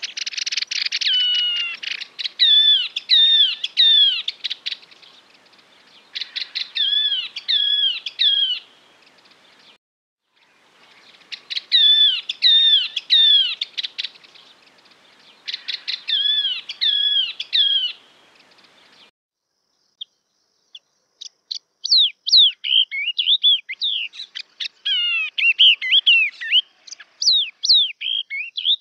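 Yellow-eyed babbler song played as a lure call: phrases of loud, clear whistled notes that curve down in pitch, each a couple of seconds long with short pauses between. About two-thirds of the way in, after a brief silence, comes a faster run of sharply falling notes.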